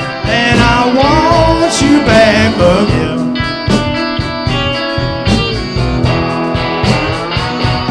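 Live blues band playing, with electric guitar lines filling the gap between sung verses.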